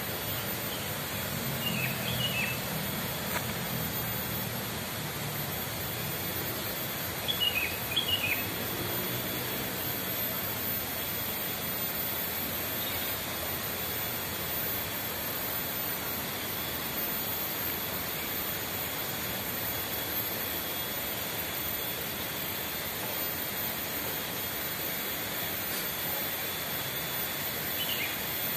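Steady outdoor rushing ambience, with a small bird giving quick runs of three or four short, falling chirps about two seconds and eight seconds in, and once more near the end. A faint low hum runs under the first few seconds.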